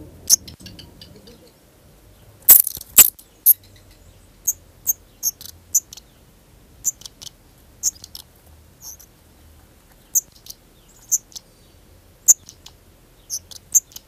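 Black redstarts calling at the nest: a scatter of short, high-pitched chirps, with a louder, denser burst of notes about two and a half seconds in.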